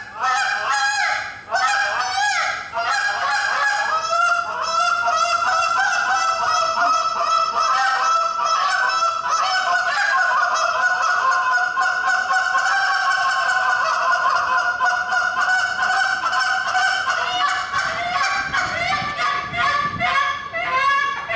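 Goose call blown in a calling-contest routine: quick clucks and honks that speed up into a long, fast run of notes through the middle, then break back into separate honks near the end.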